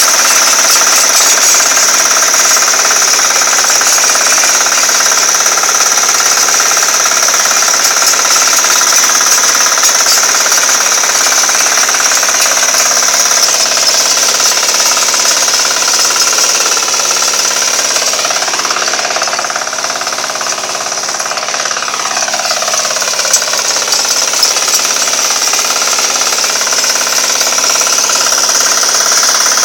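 Hand tractor's small single-cylinder diesel engine running loud with a rapid, steady hammering beat while its rotary tiller churns through soil and crop stubble; the sound dips briefly about twenty seconds in.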